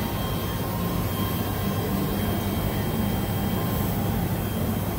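Steady mechanical hum with a faint high whine from a running CNC diamond-cutting machine for metal beads, over a constant background noise.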